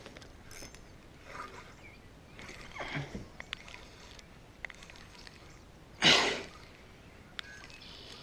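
Water splashing at the edge of a dock, with the loudest short splash about six seconds in, and a few light clicks.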